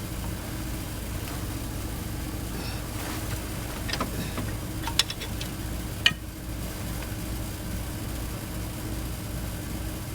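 A steady, low, engine-like hum runs throughout. A few sharp clicks or knocks fall between about four and six seconds in, the loudest near six seconds.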